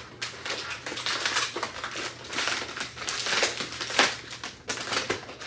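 Brown paper mailer bag crinkling and rustling as it is handled, with one sharp, loud crackle about four seconds in.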